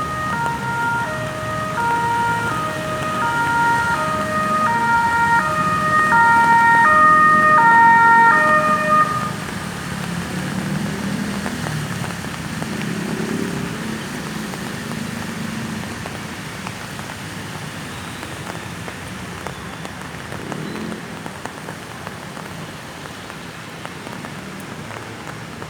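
Ambulance electronic siren playing a stepped pattern of alternating tones, hopping between fixed pitches about twice a second. It grows louder, then cuts off suddenly about nine seconds in, leaving a steady hiss.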